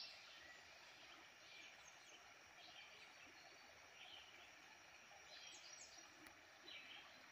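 Faint outdoor ambience: a few short bird chirps, scattered every second or so, over a steady low hiss.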